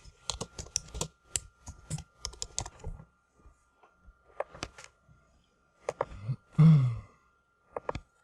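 Typing on a computer keyboard: quick runs of key clicks for about three seconds, then only a few scattered keystrokes. About six and a half seconds in comes a louder, short sound with a falling low pitch, followed by a couple more key clicks near the end.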